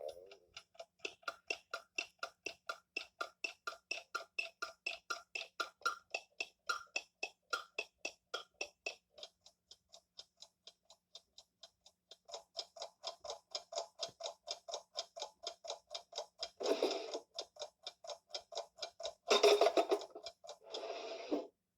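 Clock-ticking sound effect, an even run of short ticks at about four a second that grows fainter in the middle and comes back stronger. In the last five seconds three louder, drawn-out pitched sounds cut across the ticking.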